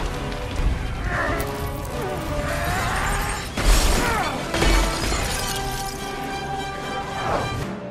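Film soundtrack: orchestral score under sound effects of ice shattering and cracking, with two loud crashes about three and a half and four and a half seconds in.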